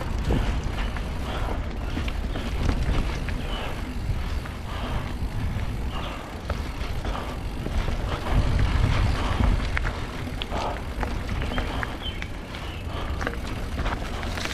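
Nukeproof Scout 290 hardtail mountain bike rolling down a dirt singletrack: wind buffeting the camera microphone as a low rumble, louder a little past halfway, over tyre noise on dirt and scattered clicks and rattles from the bike.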